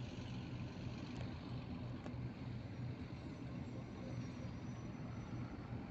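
Distant airliner engines: a steady low rumble with a fainter hiss above it, from a twin turboprop on the runway and a jet airliner on approach.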